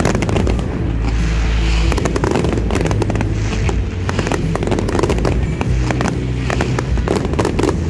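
Aerial fireworks bursting in quick succession: many rapid sharp cracks and bangs running together.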